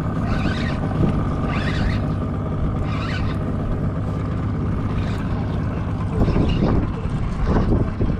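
Steady low hum of a boat's outboard motor with wind on the microphone, while a spinning reel is cranked to bring in a hooked fish. A few sharp knocks from handling near the end.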